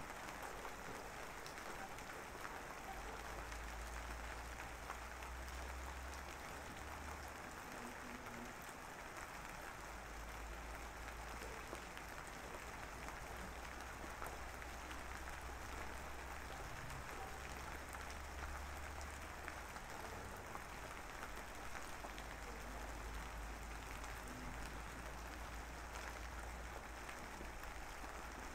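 A steady, even hiss like falling rain, with a low deep hum that swells in and out three times.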